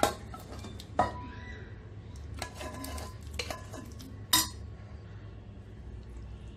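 A spoon knocking and scraping against stainless steel bowls as a thick chana dal mixture is scooped out over rice. There are three sharp metallic clinks that ring briefly, at the start, about a second in and after about four seconds, with softer scraping between them.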